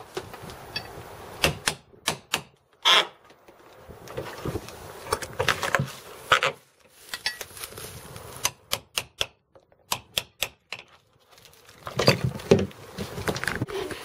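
Irregular sharp knocks and taps of a claw hammer and flat bar working against a wooden wall board, some in quick runs and others single, with short pauses between.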